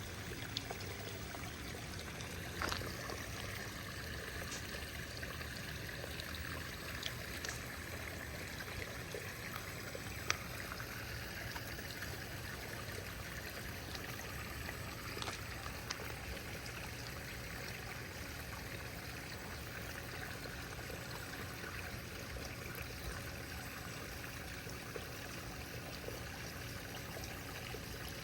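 Steady rushing noise like running water, with a few faint short clicks scattered through it.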